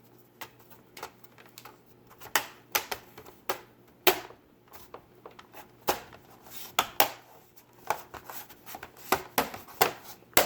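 Plastic access cover on the underside of a laptop being handled and fitted back into place: an irregular run of sharp clicks and taps.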